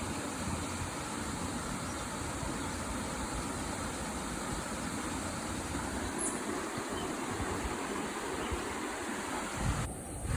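Steady rushing of river water pouring over a waterfall, with a brief low bump near the end.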